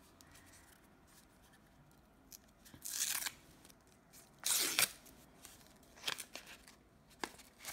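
Taped paper packaging being torn open by hand in two short rips, followed by a few light clicks as the cards inside are handled.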